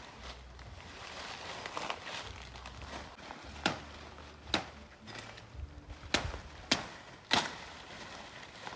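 Leaves and branches rustling as someone works by hand through dense undergrowth, with five sharp cracks spread between about three and a half and seven and a half seconds in.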